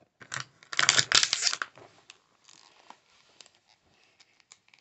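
Plastic packaging tearing and crinkling in a loud burst lasting about a second and a half, followed by scattered faint clicks and rustles as it is handled.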